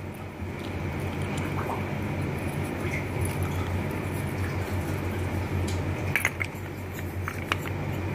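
Small clay pots clinking against each other a few times as they are handled in a heap, over a steady low hum.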